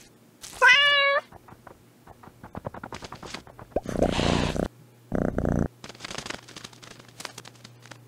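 A cat meows once, a short call whose pitch bends, about half a second in. A run of quick soft clicks and then two short noisy bursts follow.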